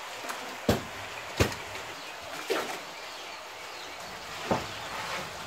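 Sharp knocks and thuds from wooden poles striking a skinned beef carcass and the concrete floor as it is levered over, four in all, the two loudest about a second in and near a second and a half in.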